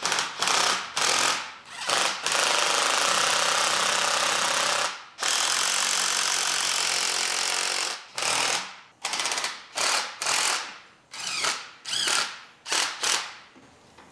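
Cordless drill turning the screw of a homemade puller on an engine block, to lift a main bearing cap out. It runs in a string of short trigger pulses, then two steady runs of about three seconds each, then more short pulses.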